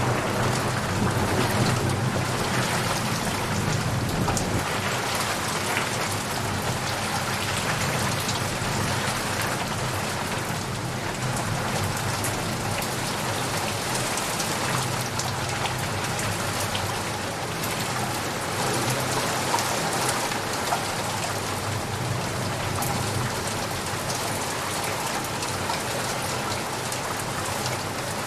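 Steady rain falling and pattering on surfaces. A low thunder rumble dies away over the first few seconds.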